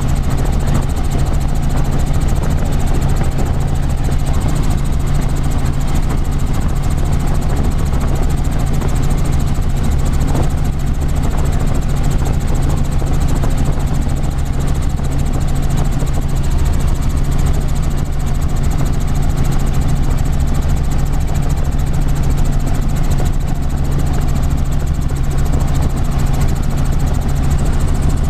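Light helicopter in steady cruise heard from inside the cabin: the engine and rotor make a constant, loud drone with a strong low hum that does not change.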